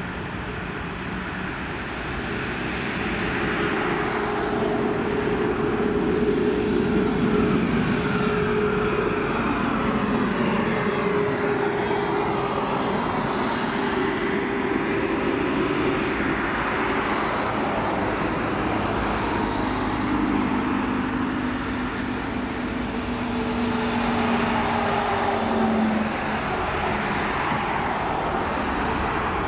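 Jet airliner's engines as it passes, a steady rush of noise with a droning tone that slowly shifts in pitch. It grows louder a few seconds in.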